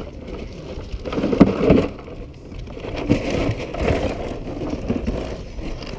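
Irregular knocks, cracks and scraping as a freshly caught striped bass and the plastic cooler lid are handled. The loudest knocks come about a second and a half in, and again around three to four seconds.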